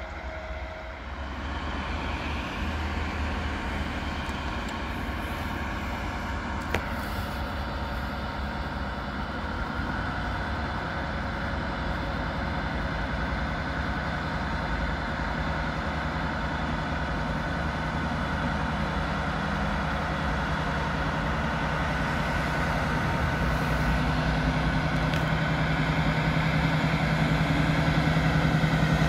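Diesel engine of a V100-type diesel locomotive with a freight train, running with a steady low hum that grows louder as it approaches. There is a single sharp click about a quarter of the way in.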